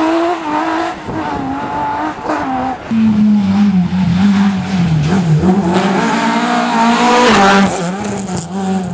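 Rally car engines at high revs as the cars race past on a tarmac stage. The engine note holds, then drops and climbs again with throttle lifts and gear changes.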